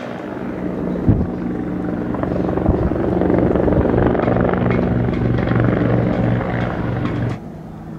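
Helicopter flying low overhead, its rotor and engine making a steady droning hum that grows louder through the first half. A sharp knock comes about a second in, and the sound cuts off suddenly near the end.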